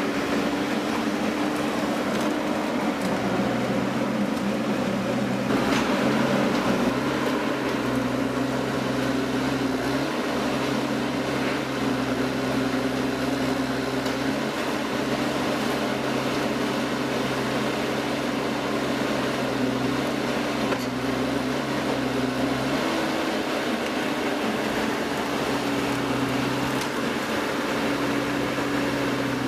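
Steady mechanical hum of a running machine, its pitch shifting slightly a few times, with a single sharp click about six seconds in.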